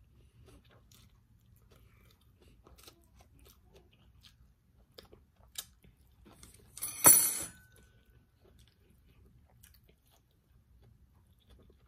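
A person chewing food close to the microphone, with soft wet mouth clicks throughout. About seven seconds in comes one much louder, short wet mouth sound, about half a second long.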